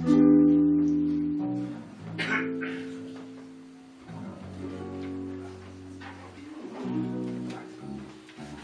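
Live band playing a slow instrumental intro: guitar chords struck and left to ring and fade, a new chord every couple of seconds, over a bass line.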